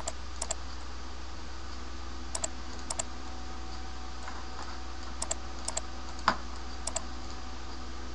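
Computer keyboard and mouse clicks while working in 3D software, mostly in quick pairs every half second to two seconds, with one louder knock about six seconds in, over a steady low hum.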